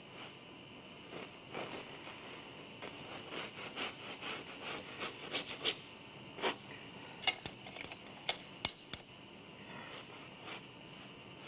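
A paintbrush scratching and scraping across canvas in quick runs of short strokes, with a few sharp ticks a little past the middle.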